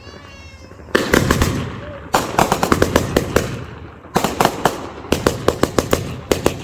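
A 200 gram, 42-shot consumer fireworks cake firing a rapid string of shots, about a second after a brief wavering high-pitched tone. The shots come in quick clusters, several a second.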